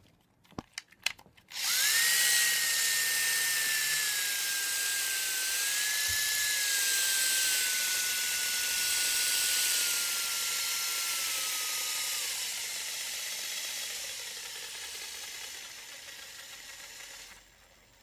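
Power drill running free with an empty chuck: a few clicks, then a steady motor whine that sags slowly in pitch. About twelve seconds in it drops lower and fades, then stops just before the end.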